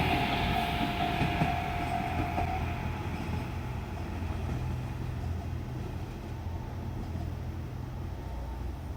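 JR Shikoku Series 1200 diesel railcar running past and away, its diesel engine hum and wheel noise fading steadily. A high steady tone stops about three seconds in.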